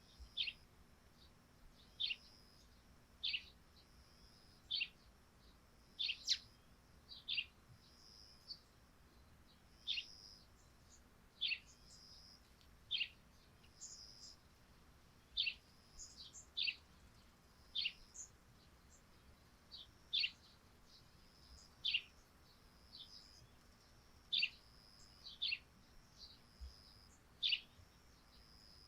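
Eurasian tree sparrows chirping: single short chirps that fall in pitch, about one every second or two, over a faint steady high-pitched drone.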